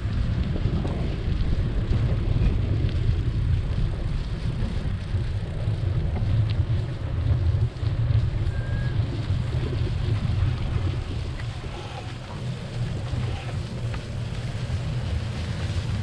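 Wind buffeting the microphone of a camera mounted on a moving bicycle, heard as a steady, fluttering low rumble that eases slightly about twelve seconds in.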